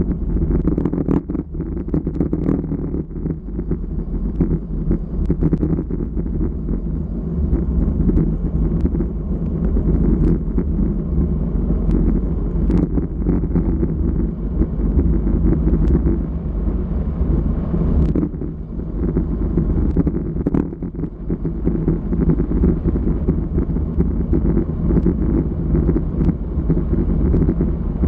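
Loud wind buffeting a GoPro's microphone on a bicycle coasting downhill at about 45 km/h, with scattered small clicks.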